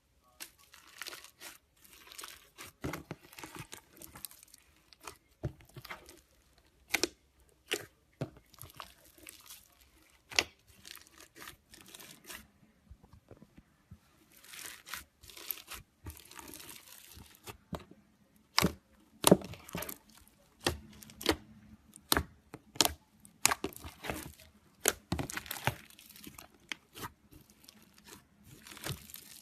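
Slime being squeezed, stretched and pressed by hand, giving an irregular run of crackles, tearing sounds and sharp pops.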